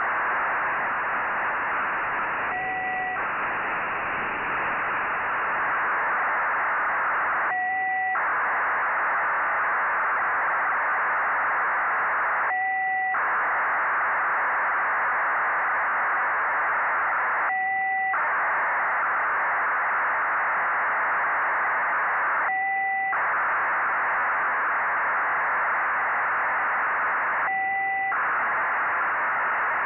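Nayif-1 (EO-88) satellite's 1200-baud BPSK telemetry downlink received on a software-defined radio, heard as a steady dense hiss of data. About every five seconds the data breaks for half a second into two steady tones, one high and one lower, as each telemetry frame ends.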